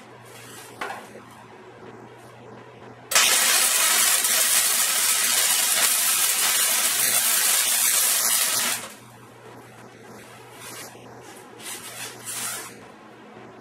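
MIG welding arc on steel, a continuous crackling hiss of one bead that starts sharply about three seconds in and stops about six seconds later. Before and after it, a faint low hum and a few small handling knocks.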